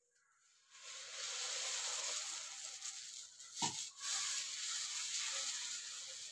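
Hot cast-iron dosa tawa sizzling, starting about a second in and fading slowly near the end, with one sharp knock about three and a half seconds in as the ladle meets the pan.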